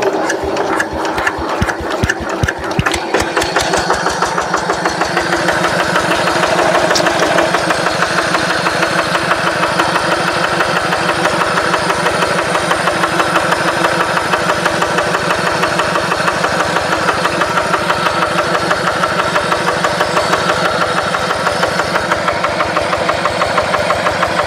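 Single-cylinder diesel engine of a two-wheel hand tractor running with an even knocking beat. It picks up speed over the first few seconds after starting, then settles into a steady idle.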